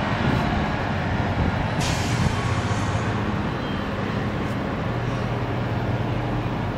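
Steady low mechanical hum over a rumbling background, with a short hiss about two seconds in.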